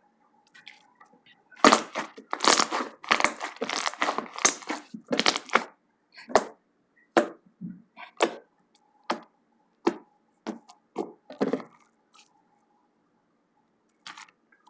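Slime being squeezed and pressed by hand, giving crackling, crunchy pops. A dense run of crackles lasts about four seconds, then single pops come about once a second.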